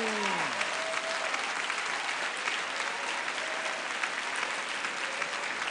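An audience applauding steadily, with a short falling voice at the very start.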